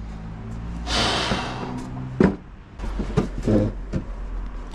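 Hand work on a bicycle rear shock at a bench: a short rushing hiss about a second in, a sharp click a little after two seconds, and a cluster of knocks and clatters near the end, over a steady low hum.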